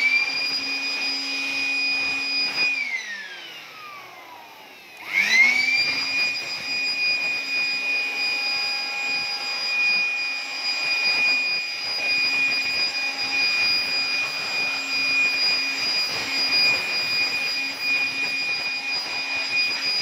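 Handheld electric air blower running at full speed with a high whine, blowing water off a freshly washed window air conditioner. It is let go about three seconds in and spins down with a falling whine, then starts again about two seconds later and runs steadily.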